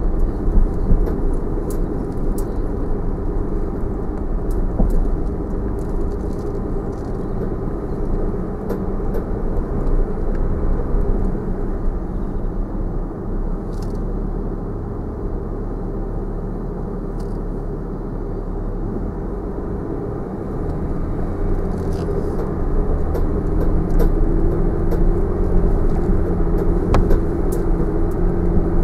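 Cabin noise of a Land Rover Discovery 4 crawling along a rutted track in low range: a steady low engine and tyre rumble, growing a little louder in the last third, with scattered light clicks.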